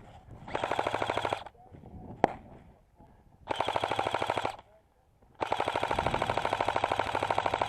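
Airsoft rifle firing full-auto in three bursts of rapid, evenly spaced shots, the last and longest running on for over two seconds. A single sharp crack comes between the first two bursts.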